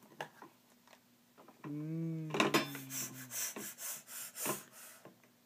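Plastic toy food and toy cookware being handled: light clicks, then a quick run of scraping, clattering strokes as the pieces rub against each other, with a short hummed voice in the middle.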